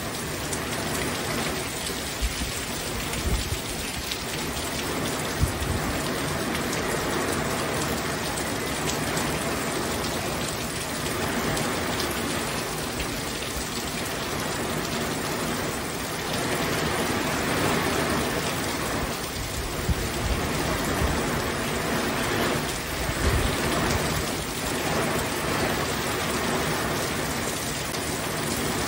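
Heavy tropical-storm rain pouring steadily onto a swimming pool and garden, growing louder a couple of times in the second half.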